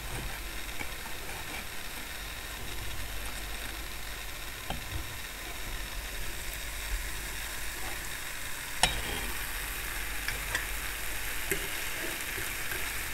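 Jalebi batter spirals deep-frying in hot oil, a steady sizzle that grows louder over the last few seconds. About nine seconds in there is one sharp tap.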